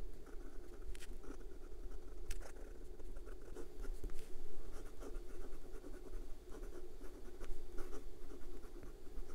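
Lemon M1 fountain pen's long-blade nib writing on paper: many short, irregular scratching strokes with small ticks as words are written out by hand.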